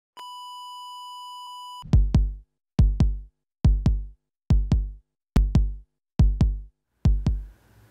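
Intro sound effect: a steady electronic beep tone held for under two seconds, then seven low double thumps in an even heartbeat rhythm, a little more than one pair a second.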